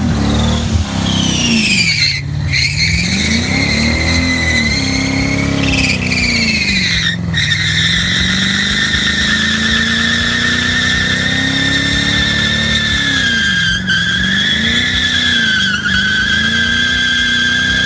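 Muscle car doing a burnout: the engine revs up and down repeatedly while the spinning rear tyres squeal in a high, steady note that holds continuously through the second half.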